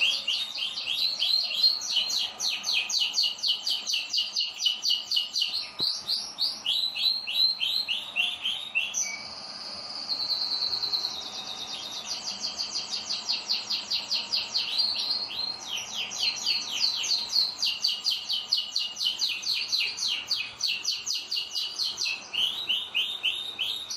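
Domestic canaries singing: long runs of fast repeated trilled notes, with a smoother, more continuous warbling phrase about nine seconds in before the rapid trills resume.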